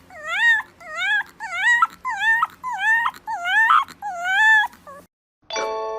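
A young pet cries over and over in about eight short, high-pitched calls, each rising and then falling in pitch. After a short pause near the end, a bell-like chime sounds and rings on.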